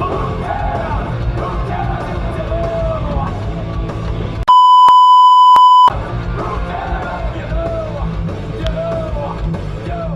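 Loud music with a singing voice, cut off in the middle for about a second and a half by a loud steady 1 kHz censor beep that blanks all other sound, after which the music resumes.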